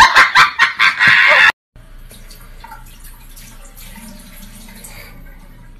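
Loud laughter in quick bursts that cuts off about a second and a half in; after that a bathroom sink's tap runs faintly.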